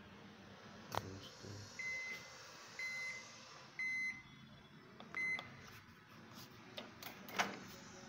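Microwave oven control panel beeping as the heating cycle stops: three evenly spaced beeps a second apart, then a shorter fourth. A few clicks and a sharp knock come near the end.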